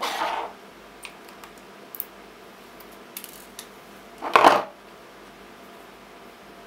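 Pliers pulling and snipping leftover nickel strip off the ends of 18650 cells. Two short metallic scraping bursts come at the start and about four seconds in, with light clicks of metal and cells being handled between them.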